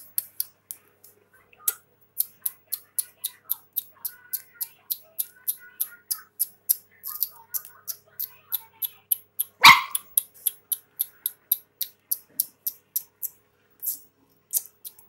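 Puppy whimpering and yipping faintly, with one loud, sharp bark about ten seconds in, over a fast, even ticking of three to four clicks a second.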